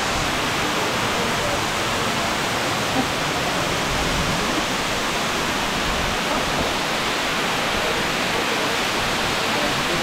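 Kanto Lampo waterfall's water rushing down its rock steps: a steady, even roar of falling water with no breaks.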